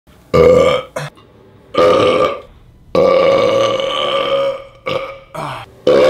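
A man belching loudly several times: two short belches, a third about two seconds in, then a long drawn-out belch lasting nearly two seconds, followed by a couple of smaller ones.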